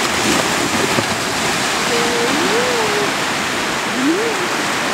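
Steady, loud rushing of water past a moving board and boat, with wind noise, and a few faint short tones that glide up and down now and then.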